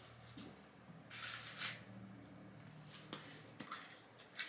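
Faint rustling, with a couple of light clicks, from hands handling a Kinder Surprise egg.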